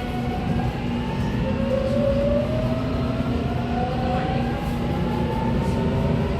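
VVVF inverter traction motors of a JR Kyushu 813 series 200-subseries EMU accelerating from a stop, with wheel and running rumble underneath. Several whining tones rise together in pitch about a second and a half in, which the uploader hears as a doubled inverter sound and suspects marks an abnormal-noise car.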